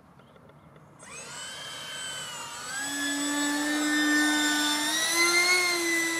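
Radio-controlled Eurofighter model jet flying past: a high whine of several steady tones comes in about a second in, grows louder, and is loudest near the end.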